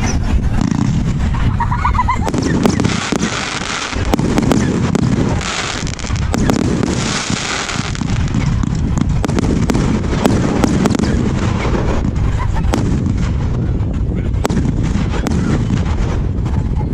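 Aerial fireworks going off in a continuous barrage: a deep rumble of bangs with many sharp cracks and crackles over it.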